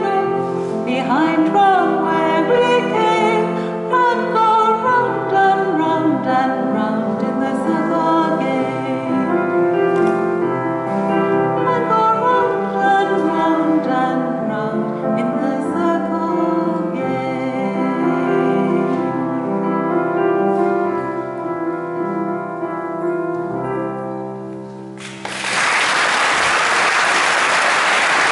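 A woman singing a slow song into a handheld microphone over instrumental accompaniment, holding the final note until about 25 seconds in. Then audience applause breaks out as the song ends.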